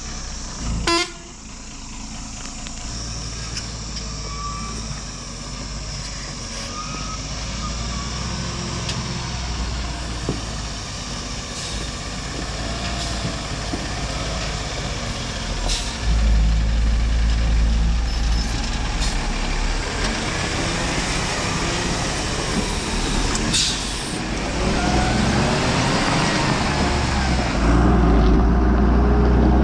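Heavy diesel truck, loaded with stone, with its engine running and growing louder in steps about halfway through and again near the end. A few short, sharp sounds cut through the engine now and then.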